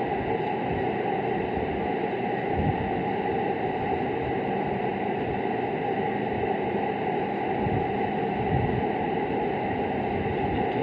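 Steady hissing background noise with a faint high whine running through it.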